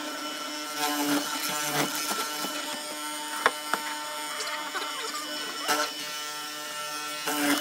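Benchtop hollow-chisel mortiser motor running with a steady hum while the workpiece is slid along its fence, with a couple of sharp clicks about three and a half seconds in.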